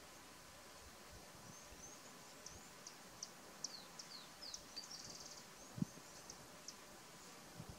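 Faint birdsong: scattered high chirps and short downward-sliding whistles, with a quick trill about five seconds in, over quiet bush ambience. A soft low thump near six seconds.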